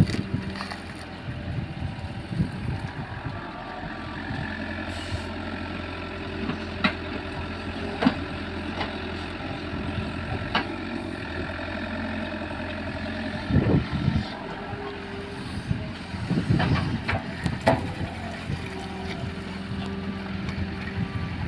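JCB 3DX backhoe loader's diesel engine running steadily under hydraulic work, with a few sharp knocks and clanks of the bucket at irregular intervals.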